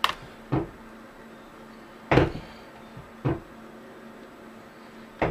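Five short knocks and clunks of a screwdriver and hands working on a laptop's plastic chassis while removing its cover screws, the loudest about two seconds in. A faint steady hum lies underneath.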